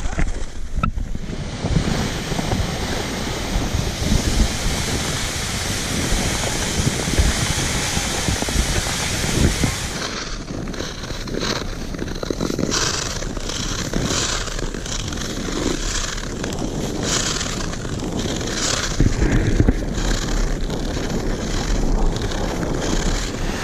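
Wind rushing over the microphone while skating. From about halfway through, a run of short scrapes of ice-skate blades on snow-covered ice, roughly one a second.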